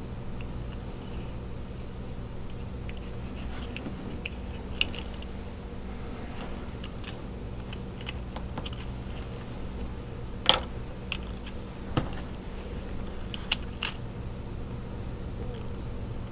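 Scattered small clicks, ticks and light scratching from detail-painting work on a 1/64 diecast model car with a fine brush, with a few sharper clicks in the second half. A steady low hum runs underneath.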